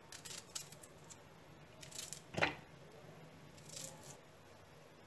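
Small knife cutting chunks off a peeled onion held in the hand: a few short, crisp cutting sounds, with a louder soft knock about halfway through.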